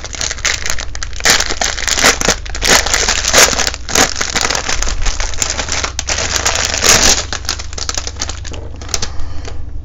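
Clear plastic packaging crinkling as it is handled and opened: a dense, loud run of crackles, busiest in the middle and thinning out near the end.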